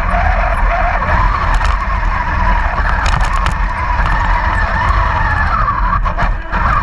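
Radio-controlled model Panther tank's electric drive motors and gearboxes running steadily with a wavering whine, with a few sharp clicks.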